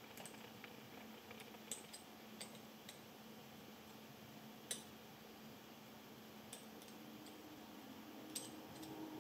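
Faint, scattered small clicks and ticks of a small tool and parts against a camera lens's mount housing as an internal part is seated, the loudest about four and a half seconds in, over a faint steady hum.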